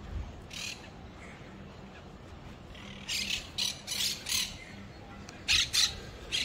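Birds calling: short harsh calls, one early, a run of about four a few seconds in, and a louder pair near the end.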